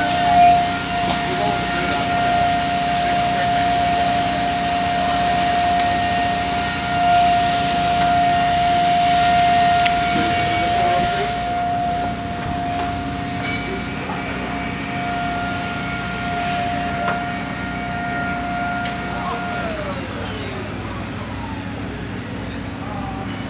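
Construction machinery on a building site, running with a steady high whine and a low hum. Near the end the whine slides down in pitch as a motor winds down.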